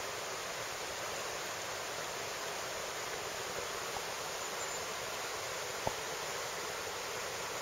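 Steady rushing of shallow river water running over rocks, with one short click about six seconds in.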